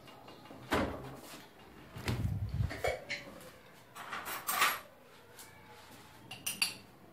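Scattered clinks, knocks and a short rattle of a metal spoon and containers being handled while ground red pepper is spooned out, with quiet gaps between them.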